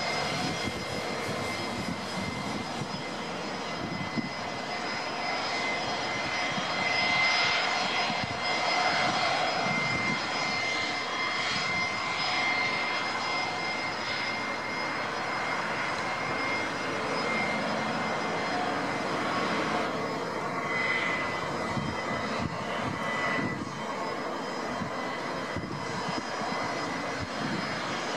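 Lockheed Super Constellation's four Wright R-3350 radial piston engines droning steadily as the airliner comes in on final approach with its landing gear down.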